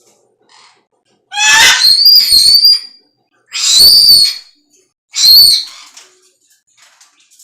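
Pet parrot making three loud, high-pitched calls, the first about a second and a half long, the next two shorter.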